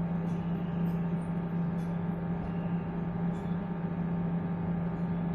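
Samsung GE83HDT microwave oven running partway through a 30-second cook cycle: a steady, unchanging hum. The oven runs but does not heat, a fault traced to an open fuse in the magnetron's ground.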